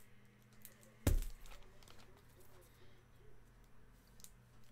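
A single sharp thump on a desk about a second in, with a few light clicks and rustles from handling trading cards, over a low steady hum.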